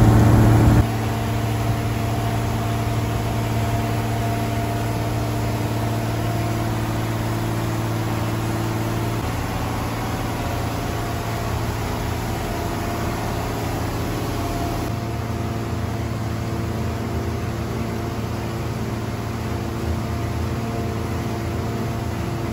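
A houseboat's engine running steadily under way: a low, even drone over a hiss. Its level and tone change abruptly about a second in, and again around 9 and 15 seconds.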